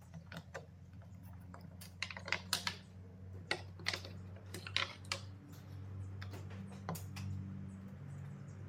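A quick run of light clicks and knocks from wooden blocks, a metal bar clamp and a steel square being handled and set down on a hard surface, busiest in the middle, with a steady low hum underneath.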